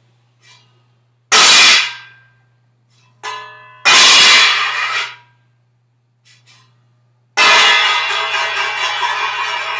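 Steel utensils (a steel tumbler and a steel thali plate) dropped on a hard floor, clanging loudly several times. Two sharp ringing crashes are followed near the end by a long, rattling clatter as a plate spins and settles.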